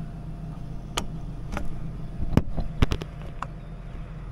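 Several sharp metal clicks and knocks, about six in two and a half seconds, as parts of the McHale Fusion3 Plus wrapper's film dispenser are handled and flipped back into place. Under them runs the steady drone of the Deutz-Fahr 6175 TTV tractor's engine idling.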